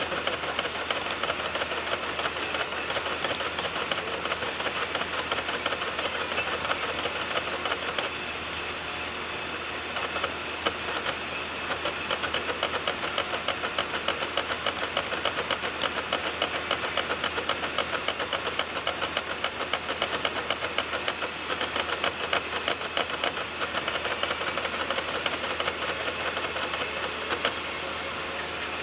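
DVD drive reading program files from a burned DVD: rapid clicking of the drive's seeking head over a steady whir of the spinning disc. The clicking breaks off for about two seconds about a third of the way in, resumes, and stops shortly before the end, leaving only the whir.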